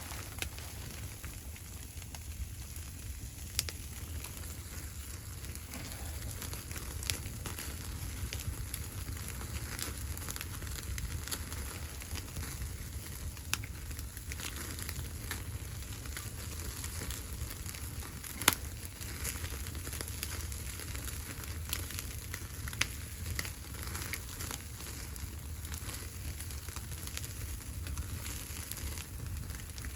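Wood fire crackling in a wood stove, with irregular sharp pops, the loudest about eighteen seconds in, over a steady low rumble.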